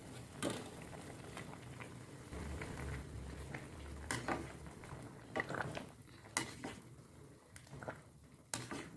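Kitchen utensils clinking and scraping against pots, pans or bowls during cooking: a handful of separate sharp clinks over a faint background.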